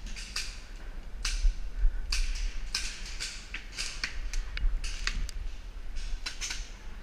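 Paintball markers firing: a string of irregular sharp pops, some in quick runs, over a steady low rumble.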